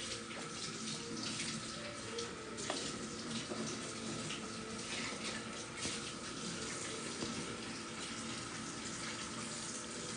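Steady rushing hiss, like running water, with a faint steady hum beneath it.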